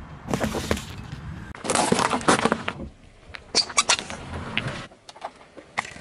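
A car tyre crushing small objects in a string of short cuts: foil-wrapped chocolate eggs crunching and crackling under the tread, then a rubber duck squeaking as the tyre rolls onto it about three and a half seconds in. Each burst starts and stops abruptly.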